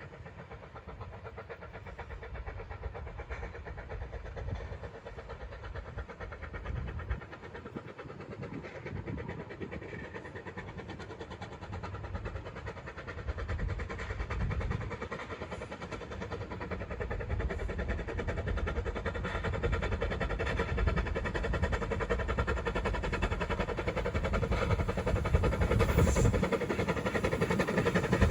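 Vale of Rheidol Railway narrow-gauge train approaching, its running noise growing steadily louder.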